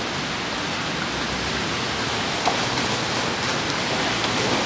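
Steady rain falling, an even hiss, with one brief tap a little past halfway.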